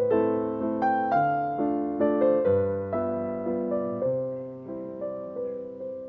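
Background music: a gentle piano melody, notes struck about once or twice a second and left to ring.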